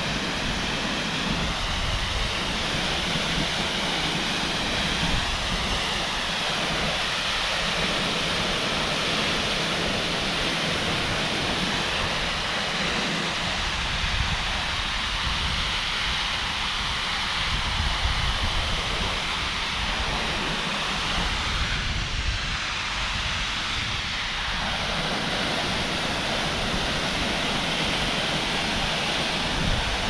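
The Cascade du Rouget's two falls pouring down a rock face onto stone: a steady rush of falling water with a deep rumble underneath.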